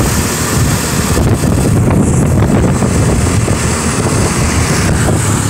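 Steady wind rush over the microphone together with the low running noise of a motorbike being ridden along a road.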